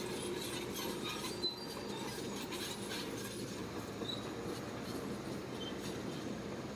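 Crawler bulldozer working: a steady diesel engine drone with the metal tracks clanking and squealing.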